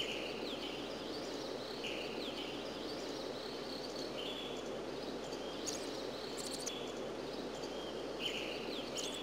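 Outdoor nature ambience: a steady hiss with short high chirps that recur about every two seconds.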